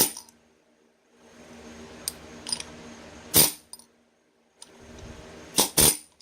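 Tapping a Ural universal joint's parts home in its yoke: a sharp strike at the start, lighter clicks, another strike a little over three seconds in, then two quick strikes close together near the end.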